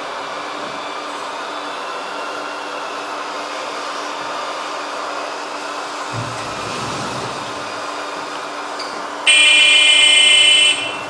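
Steady hum of running RC construction trucks, joined by a low rumble about six seconds in. Near the end a loud electronic horn from an RC truck's sound module sounds for about a second and a half and cuts off suddenly.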